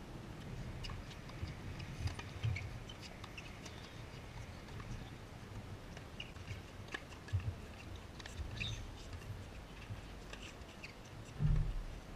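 Faint outdoor ambience at a tennis court: a low, uneven rumble with scattered light clicks and a few faint high chirps.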